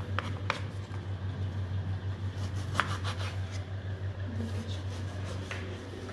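Kitchen knife slicing peeled elephant foot yam into thin pieces, striking the wooden chopping board in a few sharp taps, over a steady low hum.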